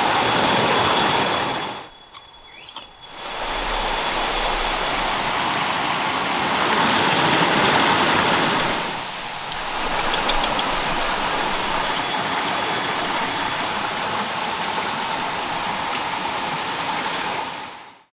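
Steady rush of water, broken by brief drops about two seconds and nine seconds in, and cut off abruptly near the end.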